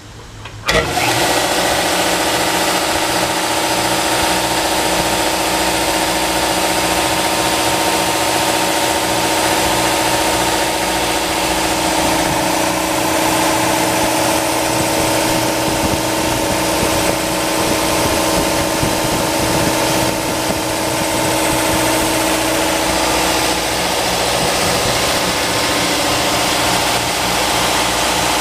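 Campbell Hausfeld Classic cast-iron upright air compressor switching on under a second in, its V-twin cast-iron pump and electric motor then running steadily under load.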